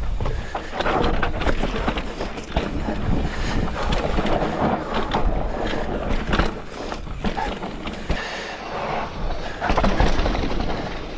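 Scott Ransom full-suspension mountain bike riding fast down rough, rocky dirt trails: tyres rolling over dirt and loose rock, with a constant clatter of knocks and rattles from the bike over the bumps.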